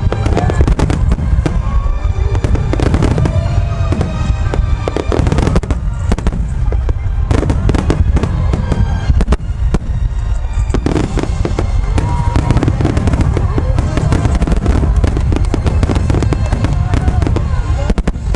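Starmine fireworks barrage: many shells bursting in a continuous run of booms and crackle, with music playing underneath.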